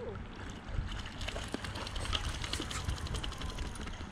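Dog paddling and then wading out of shallow lake water: a run of quick, light splashes starting about half a second in, over wind rumbling on the microphone.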